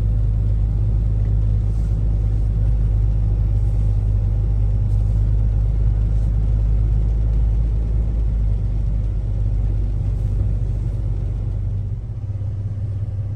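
Steady low engine and road drone heard from inside a vehicle's cab while driving, easing off slightly near the end.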